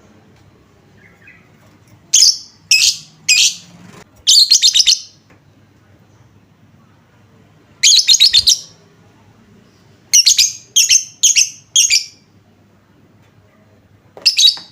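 Lovebird calling in loud, shrill chirps. There are three single chirps, then rapid chattering runs, then a quick series of four chirps, with pauses of a few seconds between groups. It is a lure call meant to set other lovebirds calling back.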